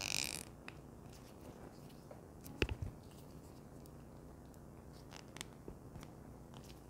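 Faint close handling of a Xiaomi Smart Band 7 tracker and its strap while the band is being changed: a brief rustle at the start, one sharp click about two and a half seconds in, and a few light ticks near the end.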